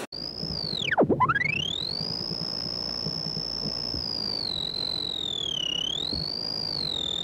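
A single high, pure electronic tone, like a synthesizer oscillator, dives steeply to a deep pitch about a second in and sweeps straight back up. It then holds high and wavers slowly up and down in pitch.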